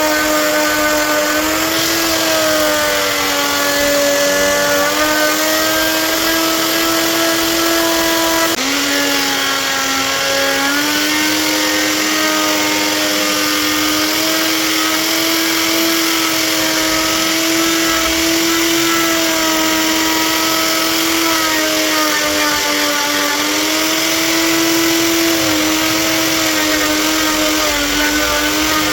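High-speed electric power tool running steadily, its pitch sagging and recovering as it bites into wood, with a sharp dip about eight seconds in.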